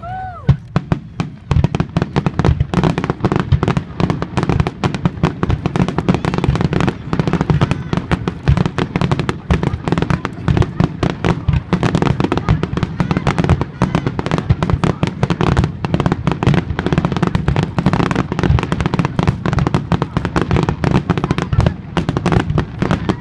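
Fireworks display: aerial shells bursting in a rapid, near-continuous barrage of bangs and crackles, thickening about a second and a half in.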